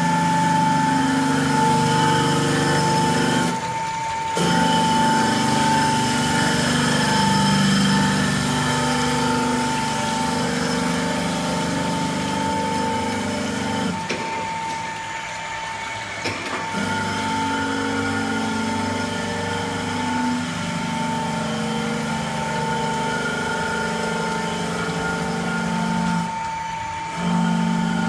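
LMD 3000 knife grinding machine running, wet grinding a long blade: a steady mechanical whine with a hum beneath it, dipping briefly in level three times.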